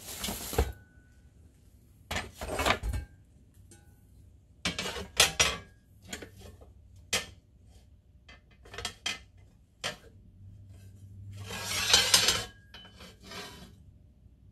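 Metal handling noises: a diamond-plate sheet scraping and knocking on a drill press table, with tools clinking. It comes as a string of short clatters and scrapes; the longest and loudest is a scrape about twelve seconds in.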